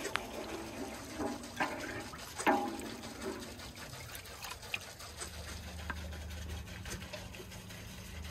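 A wooden spoon stirs and sloshes curdling milk in a large metal pot, with small splashes and knocks that are loudest in the first three seconds. A faint low hum joins about five seconds in.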